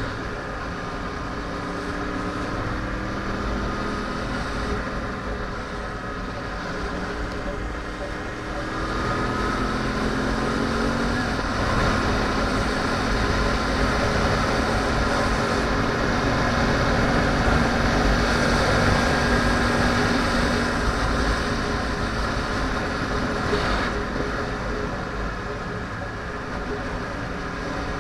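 2010 Yamaha R1's crossplane inline-four engine under way at road speed, mixed with wind and tyre rush. Its note climbs about a third of the way in, holds, and drops back again near the end.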